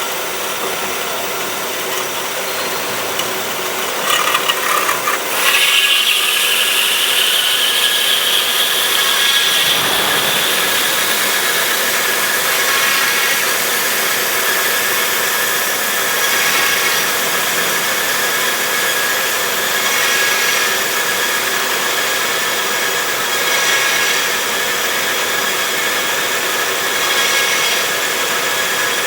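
DoALL DC-280NC horizontal metal-cutting band saw running steadily through a cut, with a hissing, grinding noise. About five seconds in it gets louder and a high whine sets in, climbing slowly in pitch.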